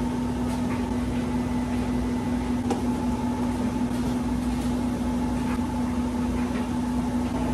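Steady mechanical hum of running laundry machines, a constant low drone with a fainter higher tone, and a few faint clicks.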